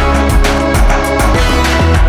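Loud electronic background music with a steady beat.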